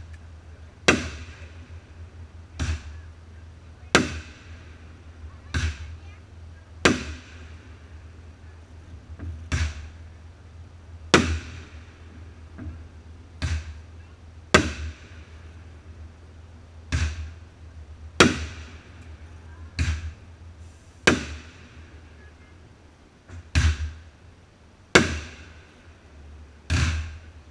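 Aerial fireworks shells going off in a steady series of sharp bangs, about one every second or two, each trailing off in an echo.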